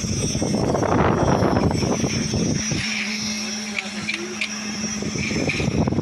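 Construction machinery running steadily with a constant hum and low rumble while wet concrete is placed on a rebar deck. There are a few light knocks and clatters, and the rumble dips briefly a little before the middle.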